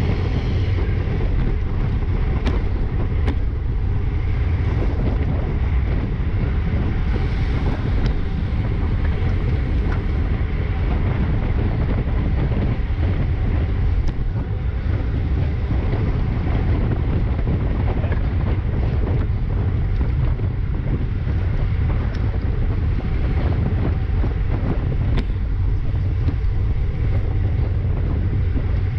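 Steady wind rumble on a GoPro's microphone, riding with a road bicycle at about 20–25 mph, with a few faint clicks.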